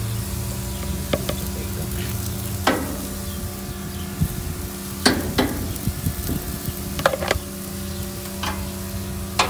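Metal tongs clacking against a gas grill's grate about six times as raw beef steaks and sausages are arranged, over a steady low hum and light sizzling of meat on the hot grate.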